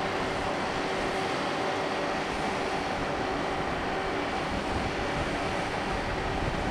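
Steady mechanical drone of a large ship's engines and ventilation machinery, a wide even rumble with a few steady hum tones running through it.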